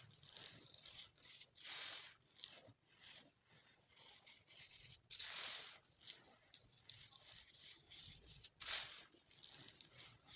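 Compressed, coloured baking soda being crushed: crackly crunching that comes in uneven bursts, with a few louder swells and small crackles between them.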